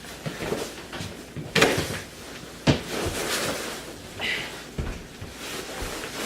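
A few household knocks: two sharp knocks, about a second and a half and under three seconds in, then a dull low thump near the end.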